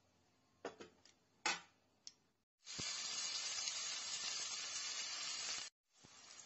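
A few sharp pops of seeds spluttering in hot oil, then chopped onions sizzling hard in the oil of a pressure cooker. The sizzle starts suddenly, cuts off after about three seconds, and goes on more softly near the end.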